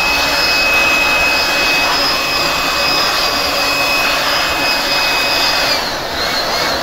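Vacuum cleaner running with a steady high whine while sucking dust out of a PC; about six seconds in it is switched off and the whine falls as the motor winds down.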